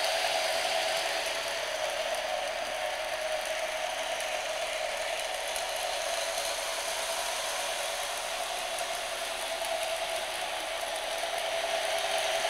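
Lionel O-gauge toy diesel locomotive and freight cars running on three-rail track: a steady electric-motor whir with wheel and gear rattle, a little louder near the start and again near the end as the train passes close by.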